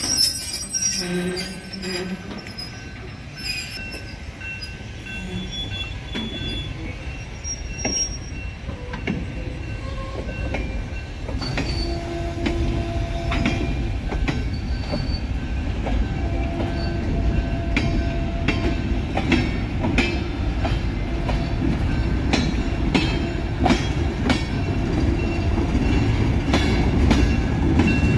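Freight cars rolling past, their wheels clicking over rail joints over a low rumble that grows louder toward the end, with a few short wheel squeals.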